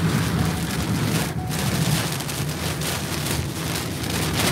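Heavy rain pelting a car's windshield and roof, heard from inside the cabin, over the steady low rumble of the moving vehicle's engine and tyres on the wet road.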